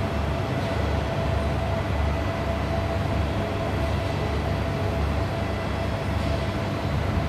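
Low, steady rumble of a standing passenger train's diesel engine running, with a thin steady tone above it.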